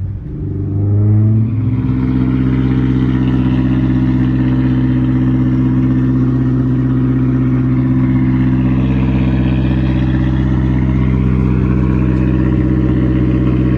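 Honda S2000's four-cylinder engine through a custom single-exit exhaust, rising in pitch for about a second and a half, then holding a steady, loud note at constant revs.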